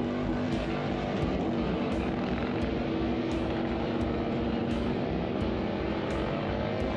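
Motorcycle engine held at high, steady revs, its pitch drifting slightly up and down.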